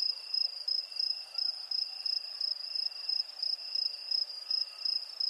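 Crickets chirping in a steady, high, pulsing trill.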